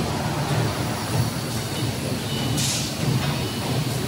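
Steady low drone of industrial machinery running around a fiber-laser cutting machine and its chiller, with a brief burst of hiss about two and a half seconds in.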